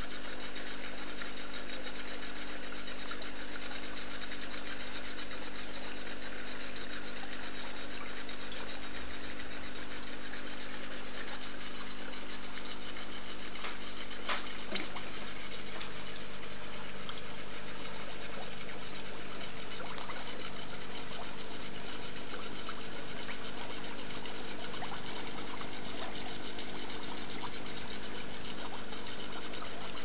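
Aquarium filtration running: steady moving water over a constant motor hum, with a single light tap about halfway through.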